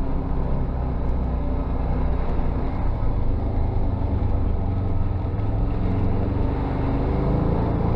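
UTV engine running steadily under way, a continuous low drone that wavers slightly in pitch.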